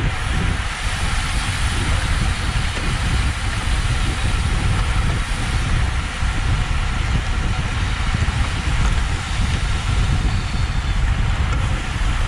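Steady wind rush and tyre noise of a road bike ridden at speed, heard through a GoPro's microphone, heaviest in the low rumble.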